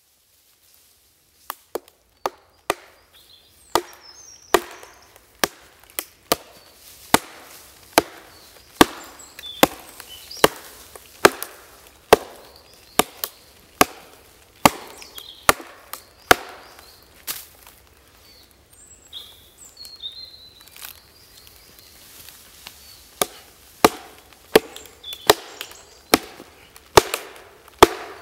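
Axe chopping into a fresh log, cutting notches: sharp wooden strikes about once a second, beginning a second or two in, with a short pause midway.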